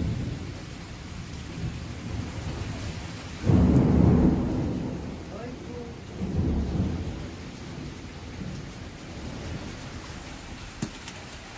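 Thunder rumbling over steady rain: a loud roll about three and a half seconds in, then a weaker one a couple of seconds later.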